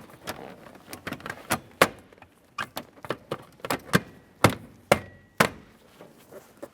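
Plastic lower dash trim panel being pressed and tapped into place by hand: a run of irregular sharp knocks and snaps as its mounting clips lock in.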